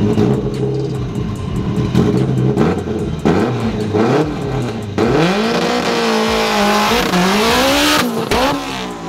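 Drag race car engine running low and steady, then from about halfway revved up and down several times, its pitch rising and falling over a loud rushing hiss.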